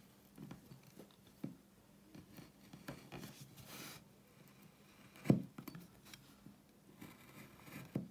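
Hand wood-carving gouge cutting and paring into a wooden board: soft scrapes and small clicks as the blade slices the wood, a longer scrape around the middle and one sharper knock about five seconds in.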